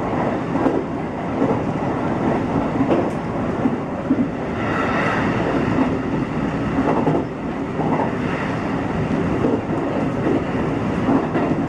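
Electric train running at speed, heard from inside the car: a steady rumble of wheels on the rails with light clicks over the rail joints.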